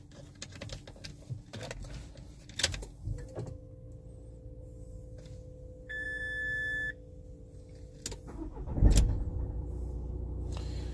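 A few clicks, then a dashboard chime beeps once for about a second as the ignition comes on. About nine seconds in, the Mercedes-Benz Citan 109 CDI's 1.5-litre four-cylinder diesel cranks, fires and settles into a steady idle.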